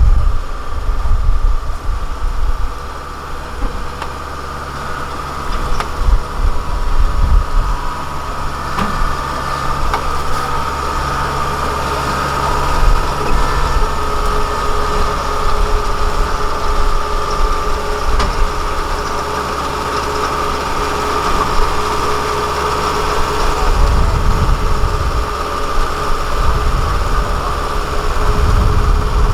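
A diesel engine running steadily, with a constant high whine above it and gusty low rumbles near the end.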